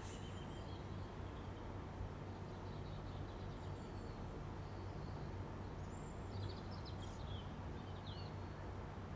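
Faint birds chirping over a steady low hum: a few short chirps two to four seconds in, then a quick run of chirps around seven seconds in.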